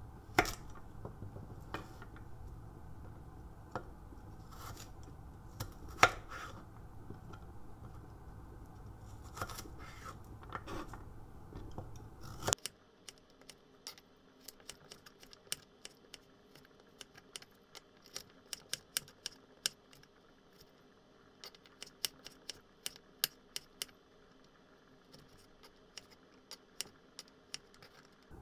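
Kitchen knife slicing carrots on a wooden cutting board: scattered crisp cuts over a steady low background hum, then, after the hum drops away abruptly about halfway, a quicker run of knife strikes against the board.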